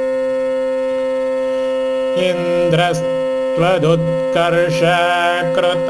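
A steady drone holds one pitch alone for about two seconds. Then a voice begins chanting the next Sanskrit verse over it in a sung melody, its pitch bending and wavering from syllable to syllable.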